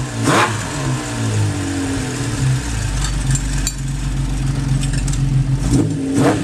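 Honda CBX 1050's air-cooled inline six-cylinder engine idling, with quick throttle blips that rise and fall in pitch, one just after the start and two near the end.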